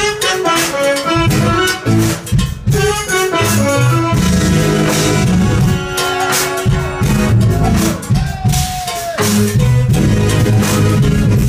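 Live jazz-fusion band playing an instrumental jam, with a drum kit, bass and melodic instruments.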